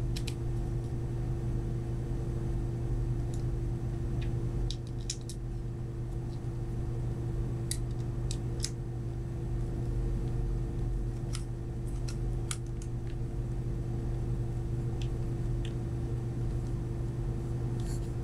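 Steady low machine hum, with about ten scattered small clicks and taps from hands handling 3D-printed plastic parts and a screw while fitting them with an Allen key.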